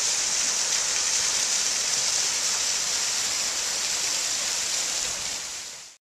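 Water pouring onto and spilling off a large wooden water wheel of about 21 feet with 48 buckets, fed from a flume: a steady rushing splash that fades out near the end.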